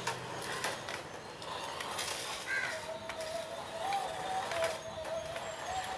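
Toy stunt RC car driving and tipping about on concrete: scattered knocks and clatters of its plastic body and wheels, and from about three seconds in a steady, slightly wavering whine of its small electric motors.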